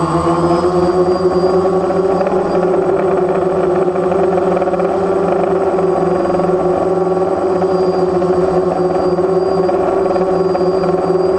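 DJI Phantom quadcopter's motors and propellers humming steadily in flight, a layered drone tone picked up by the GoPro it carries.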